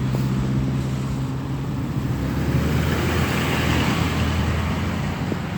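Road traffic on a wet highway: a low engine hum fades early on, then a passing vehicle's tyre hiss swells in the middle and eases off.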